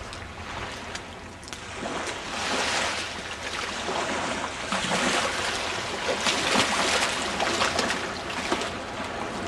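Gulf surf washing and breaking at the beach, growing louder about two seconds in and surging unevenly.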